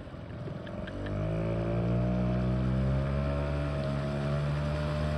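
5 hp outboard motor throttled up from a low running speed about a second in, its pitch and loudness rising and then holding steady at the higher speed as it pushes the paddleboard along.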